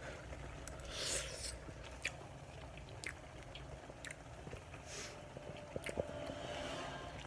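A person tasting food and chewing with soft mouth sounds and small smacking clicks.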